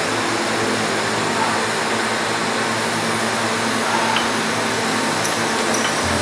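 Steady noisy hum of an industrial induction annealing machine running while it heats steel steering parts, with a few light ticks near the end.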